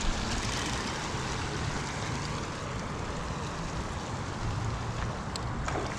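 Steady rushing of water pouring through a canal gate, with a couple of light clicks near the end.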